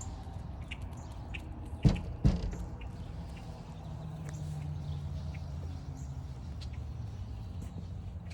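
Two loud knocks about half a second apart, about two seconds in, over a steady low rumble, with faint short bird chirps scattered throughout.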